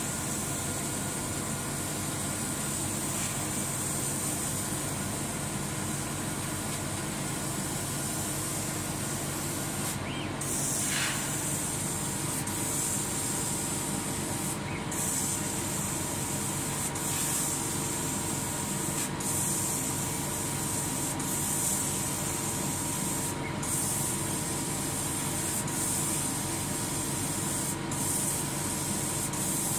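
100 W CO2 laser cutting machine at work cutting felt: a steady high hiss over a machine hum, the hiss cutting out for a moment several times, with one brief falling whine about ten seconds in.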